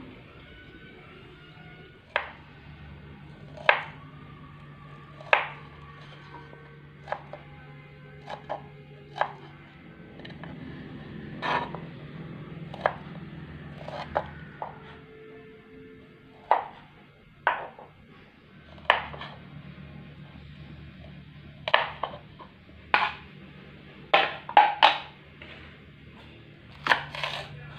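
Kitchen knife chopping food on a wooden cutting board: sharp, separate knocks every second or two, a few coming in quick runs near the end, over steady background music.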